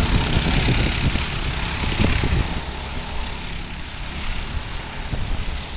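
Go-kart engines buzzing as several karts race around the track, growing somewhat quieter after a couple of seconds as they move away.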